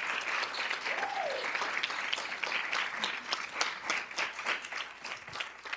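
Audience applauding: many hands clapping, the clapping thinning out and fading toward the end.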